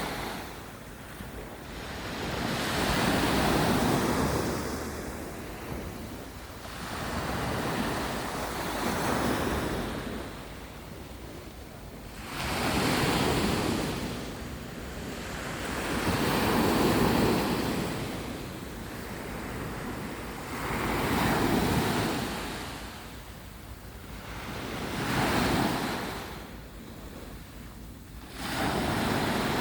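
Mediterranean sea waves washing onto the beach, each surge swelling and fading about every four seconds, seven times in a row.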